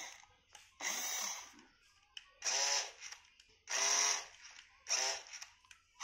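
Toy RC car's small electric drive motor whirring in four short bursts as the throttle is pressed and released, each burst rising and falling in pitch as the motor spins up and winds down.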